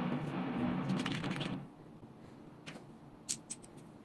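Background music stops about a second and a half in. A few light clicks and taps follow from hands working a rifle scope's turret and turret cap.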